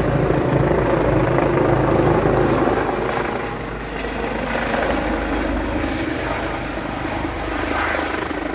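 Helicopter flying low overhead with a steady rotor throb, getting a little quieter about three seconds in.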